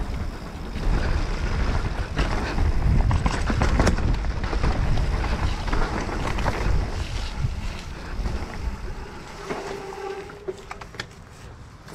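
Wind buffeting the microphone and tyre noise from a mountain bike riding a downhill trail, with the bike rattling and knocking over the bumps. It dies down over the last few seconds as the bike slows, and a short steady tone sounds near the end.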